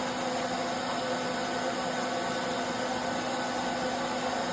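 Electric pet blow dryer running steadily while a German shepherd is groomed: a motor hum under a loud, even rush of air.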